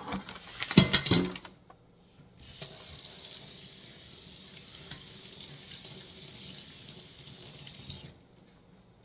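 A quick burst of handling clatter and rustling, then a tap running in a steady hiss for about six seconds, turned on and off abruptly.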